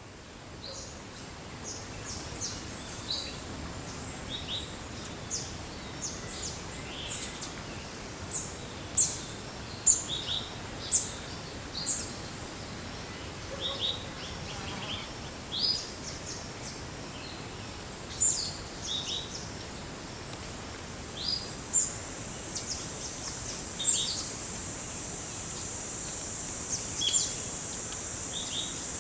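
Forest birds giving many short, high chirps and calls, scattered irregularly over a steady background hiss. About two-thirds of the way in, a steady high-pitched insect buzz starts and grows louder.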